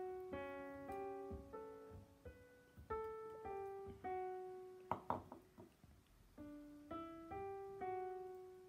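Soft background piano music playing a slow melody of single notes, a new note about every half second, with one brief sharp clack about five seconds in.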